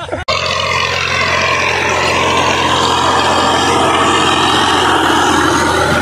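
Tractor engine running steadily under load while a tractor-mounted rotavator churns the soil, a continuous low engine drone mixed with a dense rushing clatter of the blades and earth.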